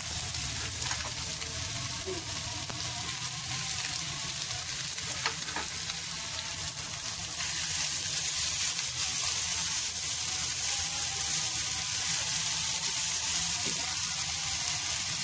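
Chicken strips and vegetables (carrot, capsicum, peas, green chillies) sizzling in hot oil in a frying pan, stirred with a wooden spatula with occasional light scrapes. The sizzle gets a little louder about halfway through.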